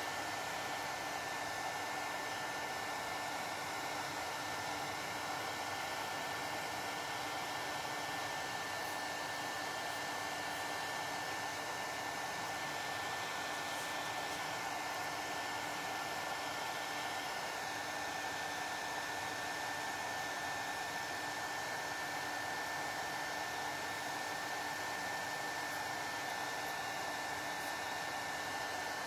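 Hair dryer running steadily, an even rush of air with a thin high whine over it.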